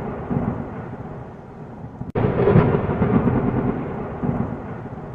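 Thunder rumbling and fading away. About two seconds in it breaks off, and a fresh, louder thunderclap starts, rolls on and slowly dies down.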